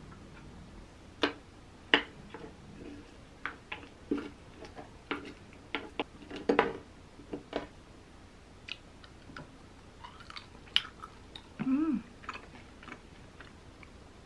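Close-up eating sounds: irregular sharp clicks of a utensil against a ceramic plate and chewing of dried sweet potato and toppings, with a short hummed vocal sound near the end.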